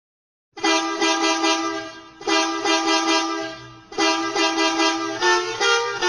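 An edited variation of the Volvo bus horn meme: a multi-tone musical bus horn sounds its tune in three long blasts after a brief silence. The level wavers through each blast, and the pitch steps to new notes near the end.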